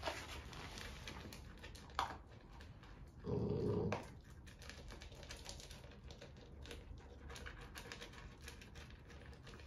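A puppy eating dry kibble from a plastic bowl: scattered small crunches and clicks of kibble against the bowl. A short, louder low sound lasting under a second comes about three seconds in.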